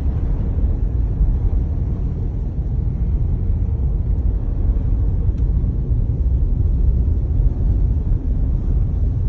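Steady low rumble of a 2019 Jeep Grand Cherokee driving on a snowy road, heard inside the cabin: road and tyre noise with the engine underneath.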